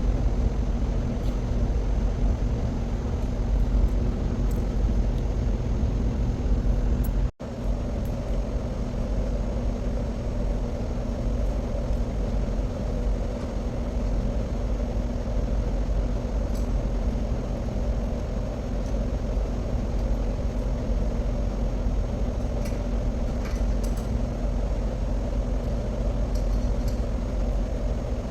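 Steady, loud, low machinery drone of an underground hydroelectric powerhouse, with a few faint clicks over it. It cuts out for an instant about seven seconds in.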